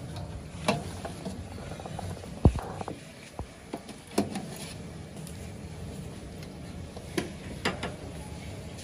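Steel ladle knocking and clinking against a large steel cooking pot and steel serving plates as trotter curry is served out, a few scattered strikes with a heavier thud about two and a half seconds in. A steady low rumble lies underneath.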